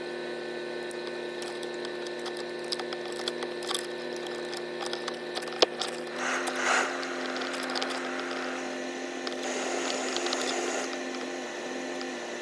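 Holden Commodore VZ heater and air-conditioning control knobs clicking as they are turned, over a steady hum. A rush of air from the vents comes up about six seconds in and again around ten seconds, as the controls are worked.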